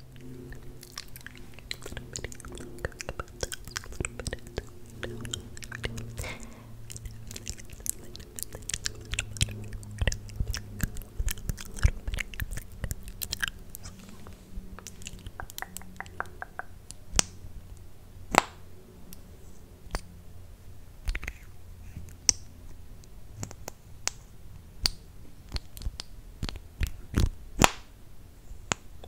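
Close-miked ASMR mouth sounds: wet lip smacks and clicks, mixed with the clicks and taps of a lip-gloss tube and wand being pumped and handled right at the microphone. A dense, uneven run of sharp clicks goes on throughout, over a low, steady hum in the first two-thirds.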